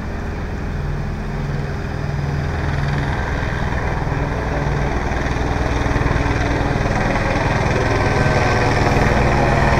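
Large vehicle's engine running with a steady low rumble, growing slightly louder toward the end before cutting off abruptly.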